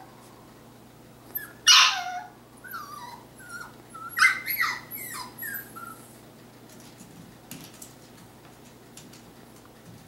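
Sheltie/Aussie mix puppy whimpering and yipping in short cries that slide in pitch, with a sharp yip about two seconds in and another loud one around four seconds. The last few seconds are quieter, with a few faint ticks.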